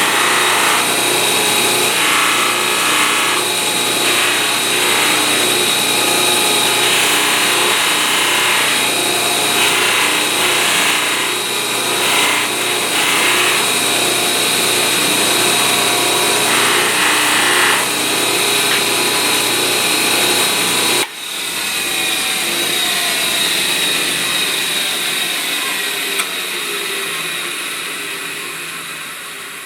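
Electric power tool running steadily, its sound changing in patches as the work is pressed against it. About 21 seconds in it is switched off and spins down, its pitch falling and fading as it slows.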